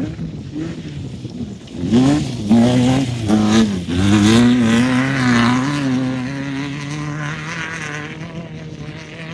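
Class 1600 desert race car's air-cooled Volkswagen engine revving hard, its pitch dropping and climbing several times in quick succession, then holding a steady high-rev note that slowly fades.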